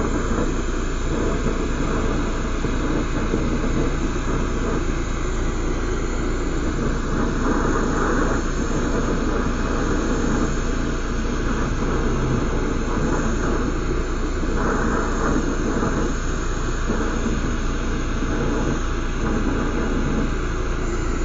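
Lampworking bench torch burning with a steady hiss.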